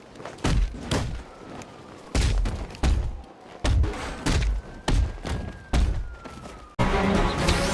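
A series of about eight heavy thumps, irregularly spaced, then loud music starts abruptly near the end.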